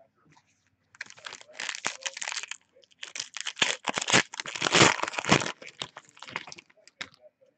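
Foil wrapper of a Panini Certified NFL trading card pack being torn open and crinkled by hand. It comes as a run of crackling bursts, loudest about three to five seconds in, then tapering off as the cards come out.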